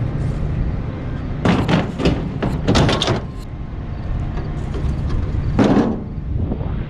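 Scrap metal being handled and stacked: a quick cluster of bangs and clatters about one and a half to three seconds in, then one more ringing clank near the end.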